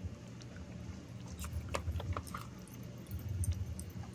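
Handheld microphone being handled, giving a low rumble with scattered small clicks and knocks, most of them clustered in the middle and later part.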